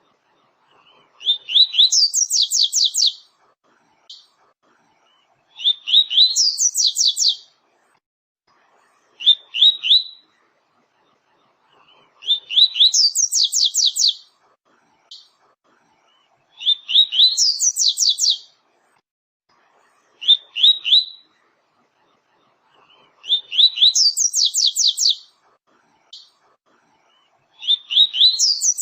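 Double-collared seedeater (coleiro, papa-capim) singing its 'tui-tui' song: a phrase every three to four seconds, each a few quick high notes running into a fast, higher trill of about a second and a half, some phrases only the opening notes.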